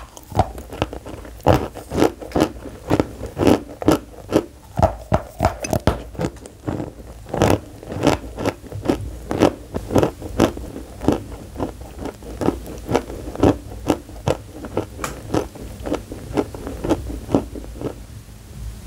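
Close-miked biting and chewing of a dry, chalky block of pressed powdered cream: crisp crunches about twice a second.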